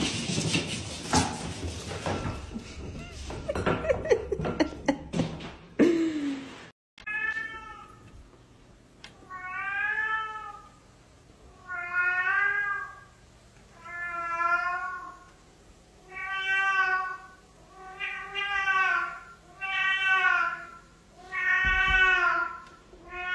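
A domestic cat giving a series of long, drawn-out meows, one about every two seconds, each rising and then falling in pitch. Before the meows, for the first several seconds, a jumble of knocks and clatter.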